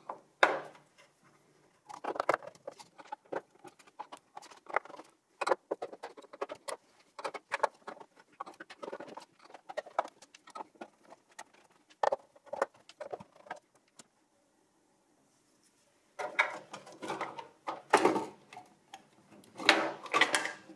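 Screwdriver backing the motherboard's mounting screws out of a steel server chassis: irregular clicks, scrapes and small metallic knocks, with a short pause about two-thirds through. Near the end the board is gripped and shifted loose in the case, giving a denser clatter.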